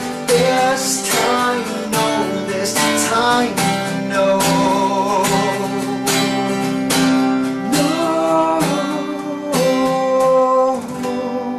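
Acoustic guitar strummed in a steady rhythm, the closing bars of a song; the last chord is struck and left to ring out near the end.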